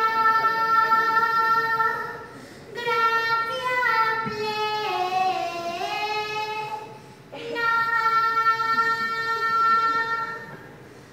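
A woman singing solo through a headset microphone, in three long held phrases; the middle phrase slides down in pitch and comes back up.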